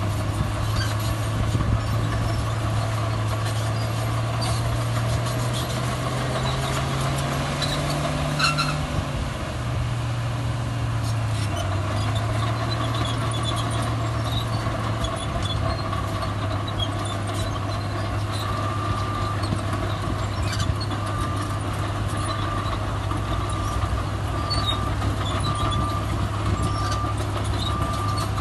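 Heavy diesel earthmoving machinery running, its engine pitch climbing for a few seconds around the middle and then dropping back as it works under load. A reversing alarm starts beeping at an even pace about two-thirds of the way through.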